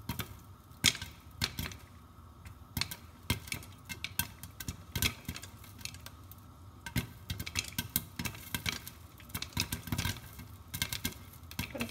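Popcorn kernels popping in hot oil in a pot with a glass lid, the popped kernels hitting the lid: irregular sharp pops, several a second, with one loud pop about a second in.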